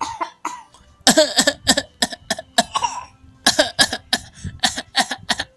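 Repeated short coughs in quick clusters: a small child copying coughing on request.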